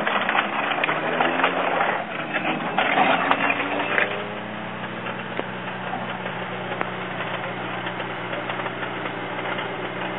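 A rally car speeds past on gravel, its engine note falling as it goes by, with stones and grit crackling. About four seconds in the sound cuts to a rally car's engine idling steadily.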